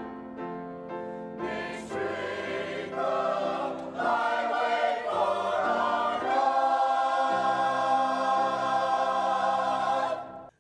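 Church choir of mixed men's and women's voices singing a choral anthem. It grows fuller and louder about four seconds in, then holds a long chord that stops abruptly at the very end.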